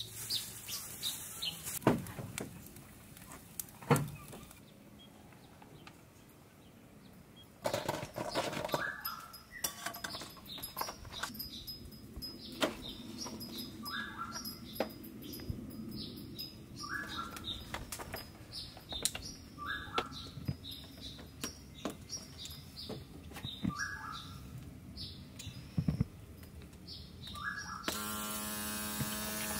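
A bird repeating a short call about every three seconds, over scattered clicks and knocks. A steady hum starts near the end.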